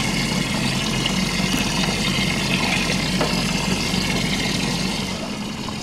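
Steady low mechanical hum of the boat's machinery under a constant rush of running water, easing slightly near the end.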